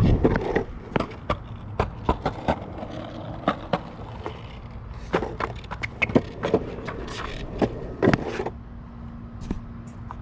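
Skateboard wheels rolling on a concrete sidewalk, a low rumble with sharp clacks as they cross the joints between the slabs. The rolling and clacking stop about eight and a half seconds in.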